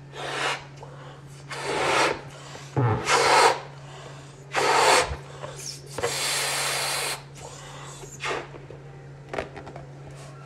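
A latex balloon being blown up by mouth: five strong, breathy blows in the first seven seconds, the last one the longest, then a few shorter, softer puffs near the end. A steady low hum lies underneath.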